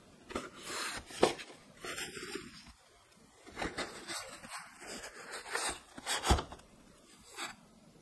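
Paper bags and cotton mesh produce bags rustling and crinkling as fruit is packed into them, with a few knocks, the loudest a little after six seconds in.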